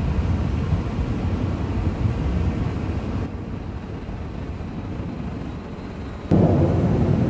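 Low rumble of aircraft engines overhead. It eases a little after about three seconds, then jumps suddenly louder with a click near the end.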